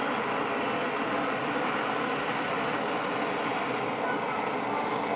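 Handheld kitchen blowtorch burning with a steady hiss as its flame caramelises the sugar topping of a crème brûlée.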